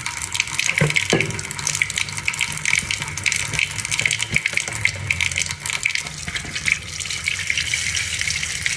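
Running water splashing steadily, with a fine crackle of splashes throughout.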